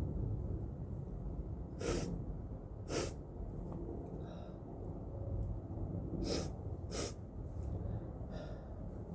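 A person with a head cold breathing hard through a mask, with four short, sharp breaths in two pairs and fainter breathing between them.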